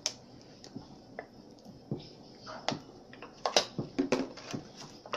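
Scattered light clicks and taps of kitchen utensils being handled while cupcake tops are cut off, coming more often in the second half, with a few brief faint voice sounds.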